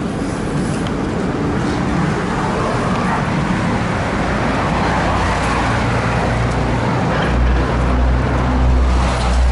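Road traffic on a busy avenue: a continuous wash of vehicles passing. From about the middle a low, steady engine drone comes in and grows loud toward the end.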